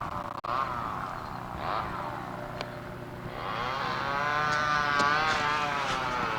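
A vehicle engine running and revving, its pitch rising and falling in swells and growing louder after about three seconds.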